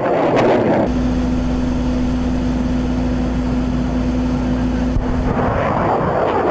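Rushing roar of HIMARS rockets in flight. About a second in it cuts to a steady low drone with a hum, and the rushing roar comes back near the end.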